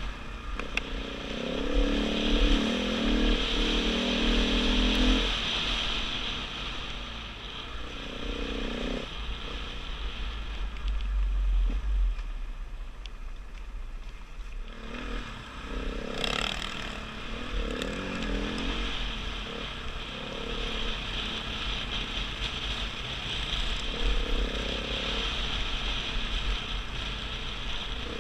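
KTM 500 EXC dirt bike's single-cylinder four-stroke engine running while riding a dirt road, its revs rising and falling; it eases off around the middle and picks up again. A low rumble runs underneath.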